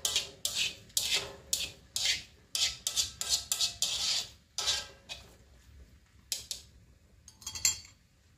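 Metal spatula scraping and tossing noodles in a wok, about two strokes a second, thinning out after about five seconds. Near the end a short metallic clatter as the spatula is set down on a plate.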